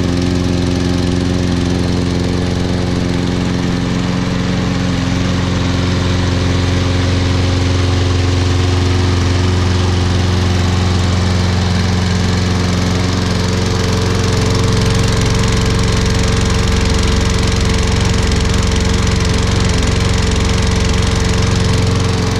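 Toro Recycler Personal Pace 20332 walk-behind lawn mower's single-cylinder Briggs & Stratton 7.25 gross-torque engine running steadily just after an easy auto-choke pull start. It gets slightly louder about two-thirds of the way through.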